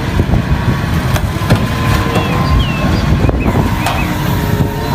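A large forklift's engine running as the forklift drives into a shipping container on a trailer, a dense steady rumble with a few sharp knocks.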